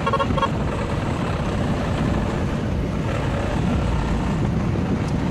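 Tata Ace Mega mini truck's diesel engine running steadily under way, heard from inside the cab. A brief double beep sounds right at the start.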